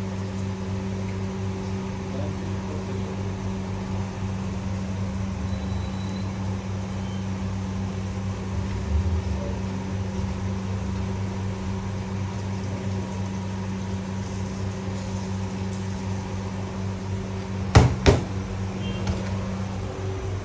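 Steady electric hum of a kitchen appliance or fan running, with two sharp knocks close together near the end. Part of the hum cuts out shortly before the end.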